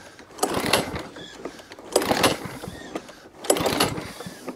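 Recoil starter of a 414 petrol rotary lawn mower pulled three times, about a second and a half apart. Each pull is a short whirring rattle as the overhead-valve engine turns over without catching.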